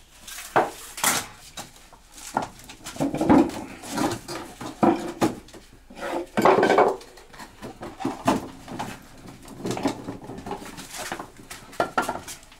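Workshop clatter: irregular metal clanks, knocks and clicks of tools and parts being handled at a car's engine bay during an engine installation.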